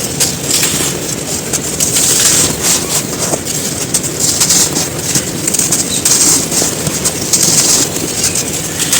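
Dry, crispy molded sand crumbling and crunching, a dense, continuous crackle of many small grainy crunches that swells and eases every second or two.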